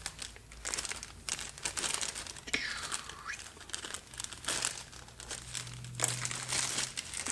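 Thin plastic zipper-lock bag crinkling and rustling in the hands as it is squeezed and turned, with irregular crackles throughout.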